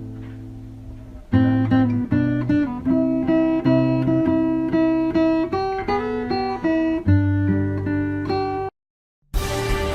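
Background music: an acoustic guitar piece of plucked notes and chords. It breaks off near the end, and after a brief silence a different, fuller music track starts.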